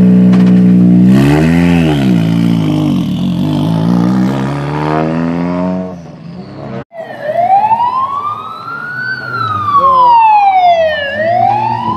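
A Ford Fiesta rally car's engine runs steadily, is revved once about a second in, and rises and falls in pitch as the car pulls away. After an abrupt cut, a siren wails, sweeping slowly up and down in pitch, roughly two seconds each way.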